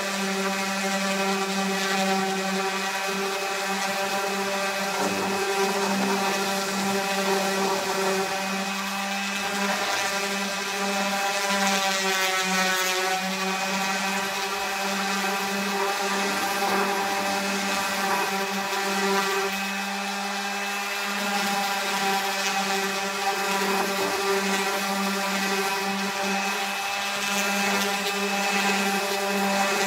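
Electric random orbital sander running steadily against a pine board, a constant hum with a whine above it. Its pitch wavers briefly a little before halfway.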